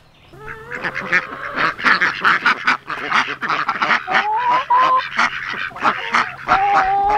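A flock of ducks quacking in rapid, overlapping calls, with a few longer calls that rise slightly in pitch about four seconds in and again near the end.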